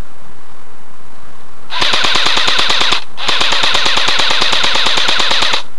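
Airsoft rifle firing on full auto: two long bursts of rapid, evenly spaced shots. The first starts nearly two seconds in, and the second follows after a brief break.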